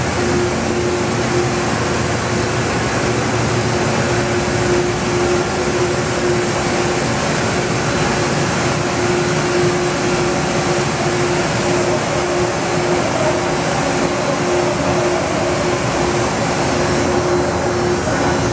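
Steady drone of printing-plant machinery running, an even noise with a constant hum through it.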